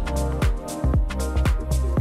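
Background music with a steady beat, about two and a half deep kick-drum strikes a second, over sustained bass and chords.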